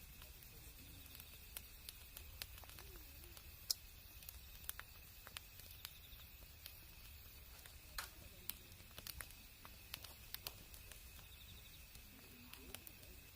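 Campfire burning quietly, the wood giving off irregular sharp crackles and pops, one louder snap a few seconds in, over a faint steady hiss.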